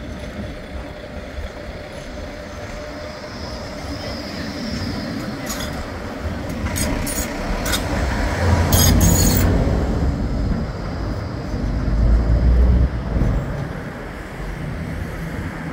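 Bombardier Flexity 2 light rail tram approaching and passing close by. Its running noise builds to a peak as it goes past, with several sharp clicks and a heavy low rumble, then falls away.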